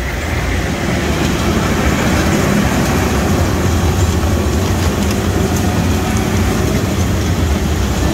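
Engines of military vehicles fording a swollen river: a loud, steady low rumble mixed with rushing, splashing water, swelling slightly in the first second.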